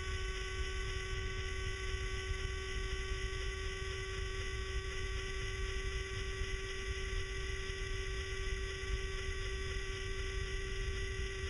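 Electric motorcycle's drive motor whining at one steady pitch while cruising at constant speed, over a low rumble of wind and road noise on the microphone.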